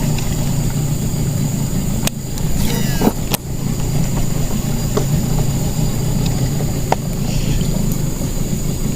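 Boat motor running steadily with a low hum, with a few sharp clicks along the way and a brief falling high chirp about three seconds in.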